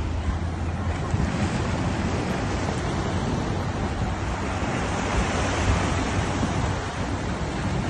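Ocean surf breaking and washing over the rocks of a breakwater, a steady rushing wash, with wind buffeting the microphone.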